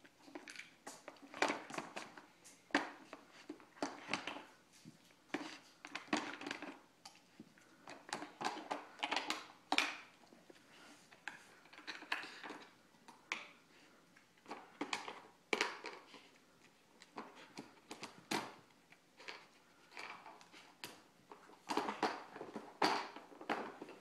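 Nina Ottosson Dog Casino puzzle toy clattering and knocking irregularly as a standard poodle puppy works at its pieces.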